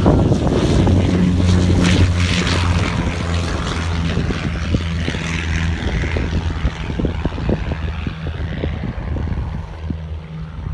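Light propeller airplane at takeoff power, lifting off and climbing away: a steady propeller drone that grows fainter as it recedes.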